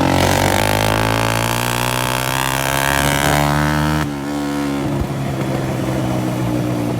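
Honda CG 125 motorcycle's single-cylinder four-stroke engine running with a burst silencer, giving a loud, open exhaust note. A rushing noise lies over it for the first four seconds; then it drops a little and runs steadily.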